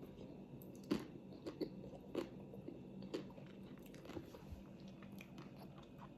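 A person eating ice cream up close: irregular sharp crunching bites and chewing, the loudest crunch about a second in.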